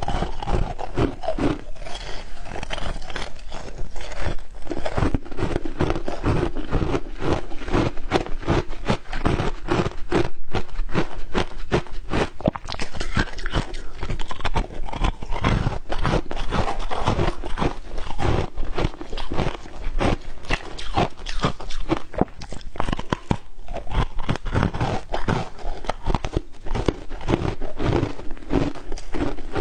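Close-miked crunching and chewing of chunks of frozen ice coated in matcha powder, bitten off and chewed between the teeth in a dense, continuous stream of crunches.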